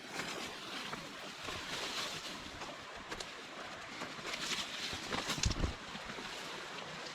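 Steady rushing of the Grey Wolf River, an even hiss of fast water, with a few short knocks, the heaviest about five and a half seconds in.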